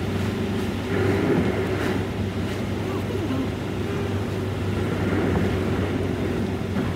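Steady cabin noise of a car driving: engine hum and road noise heard from inside the car.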